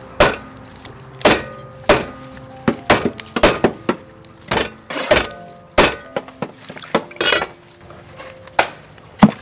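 Cleaver chopping meat on a wooden chopping block: a run of sharp, irregularly spaced chops, about fifteen in all, sometimes two or three close together.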